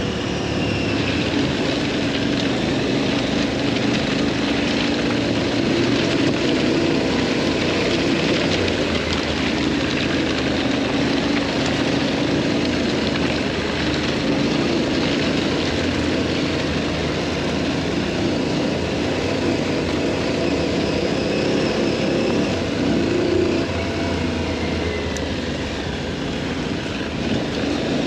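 Adventure motorcycle engine running under way at fairly steady revs, with a continuous rush of wind and road noise over the camera.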